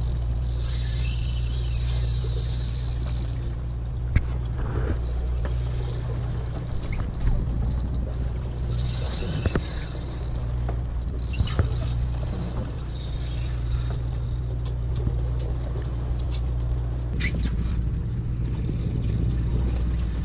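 Sportfishing boat's engine running with a steady low hum. Patches of water hiss come and go over it, and a few short knocks sound on deck.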